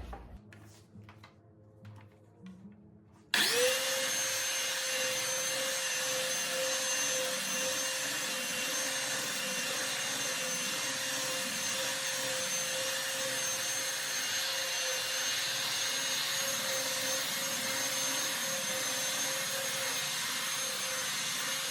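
Handheld belt sander switched on about three seconds in, then running at a steady speed with a constant motor tone and a high whine over the rush of the belt.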